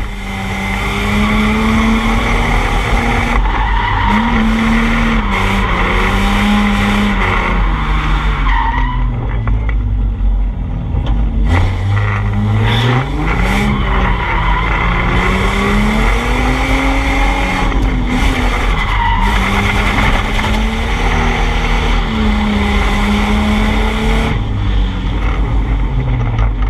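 Drift car's engine revving up and down again and again through a drift run, with its tyres skidding and squealing.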